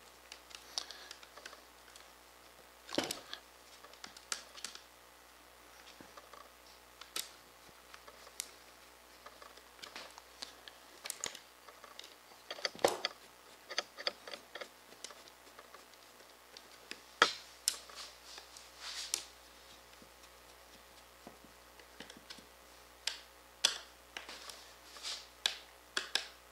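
Irregular small clicks and taps of a screwdriver working screws and nuts on a clear acrylic plate, with a few louder knocks of the plate and tool being handled.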